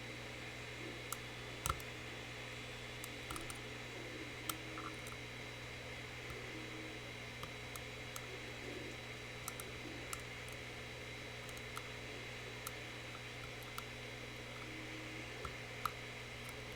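Scattered small, sharp metallic clicks and ticks of lock-picking tools working in a Mul-T-Lock Classic Pro pin-tumbler cylinder, a few seconds apart, over a steady low hum and hiss.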